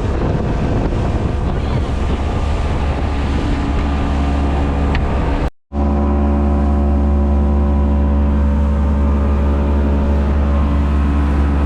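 Boat motor running at steady speed with wind buffeting the microphone; after a cut about five and a half seconds in, the engine carries on as an even, steady drone with much less wind.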